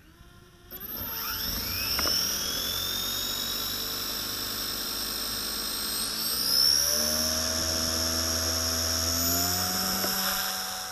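Align T-Rex 150 DFC micro electric RC helicopter spooling up: a high whine from the motor and rotors starts about a second in and rises in pitch. It climbs again about six seconds in, holds, then fades near the end.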